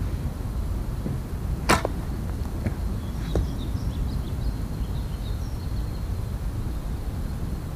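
Arrows shot at a 3D foam deer target missing and striking close by: one sharp, loud strike about two seconds in, then two fainter ones within the next two seconds, over a steady low rumble.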